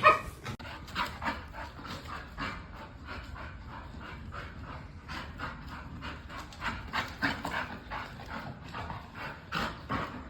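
A dog panting, fast and rhythmic, several breaths a second.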